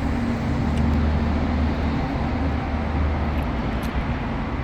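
Automatic car AC service machine running in refrigerant recovery mode: a steady mechanical drone with a constant low hum and a faint tick or two.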